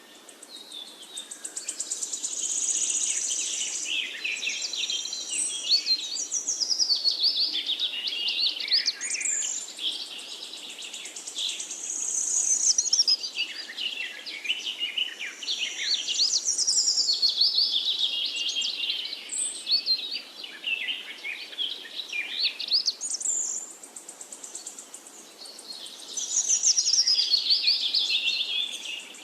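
Many small songbirds chirping and trilling at once in a dense, overlapping chorus that swells and eases in waves every several seconds.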